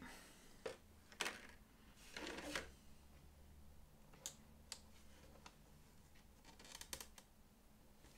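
Faint scattered clicks and taps, with a brief rustle about two seconds in, as small skirting-board pieces are handled and pressed into place around a dollhouse bay window.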